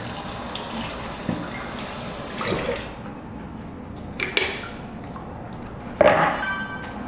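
Kitchen tap running into a sink, then shut off about three seconds in, followed by knocks of kitchenware and a loud clank with a brief ringing near the end.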